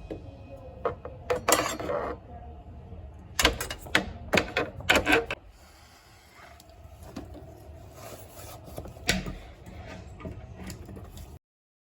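Handling noise from a handheld LED pickup tool: clusters of sharp clicks and rattles, about a second and a half in, again between three and a half and five seconds, and once more near nine seconds, over a low background; the sound cuts off suddenly near the end.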